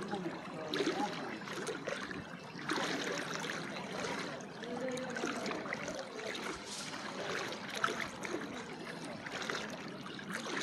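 Knee-deep floodwater sloshing and trickling as people wade through it and push a motor scooter along.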